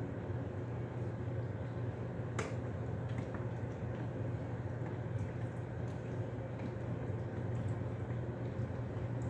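Steady low hum with one sharp click about two and a half seconds in and a few faint ticks.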